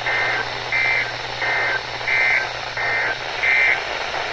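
EAS end-of-message data tones from a NOAA Weather Radio broadcast: six short buzzy two-tone bursts, alternating louder and fainter about 0.7 s apart, over radio hiss and a low hum. They signal that the severe thunderstorm warning message has ended.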